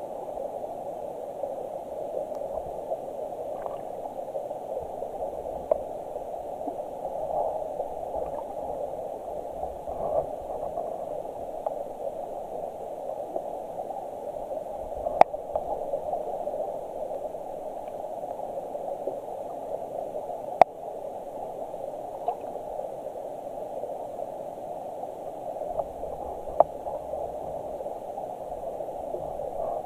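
Stream water flowing, heard underwater as a steady, muffled rushing. A few sharp clicks stand out, two of them louder, around the middle.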